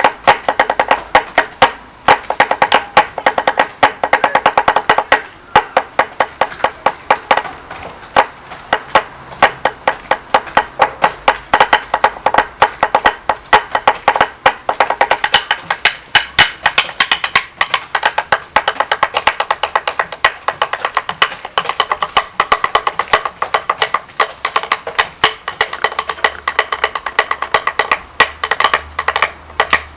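Drumming on wood blocks: sharp, hollow knocks several times a second in a busy, continuous rhythm, each with a short pitched ring.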